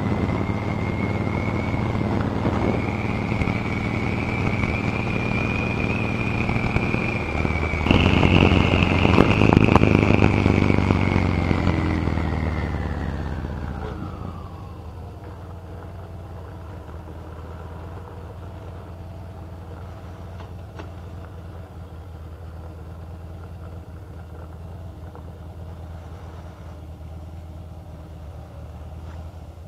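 Harley-Davidson V-twin motorcycle engine running on the road, louder about eight seconds in. It then slows down, its pitch falling over two or three seconds, and settles into a steady idle as the bike comes to a stop.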